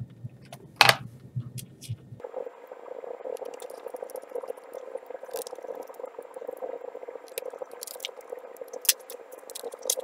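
Hand-handling sounds of laptop drive work: a single knock about a second in, then a steady rushing noise with scattered light clicks and taps as an SSD is fitted into the laptop's 2.5-inch drive bay.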